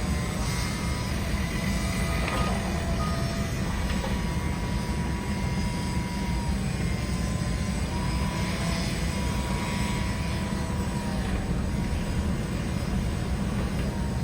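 Heavy demolition machinery running steadily with a low rumble, with faint high squeals and a few light crunches of debris.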